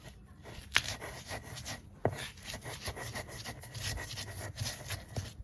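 Pickle being ground by hand on a silauto, a flat stone slab worked with a hand-held grinding stone: irregular rubbing and scraping strokes, with a sharp click about a second in and another about two seconds in.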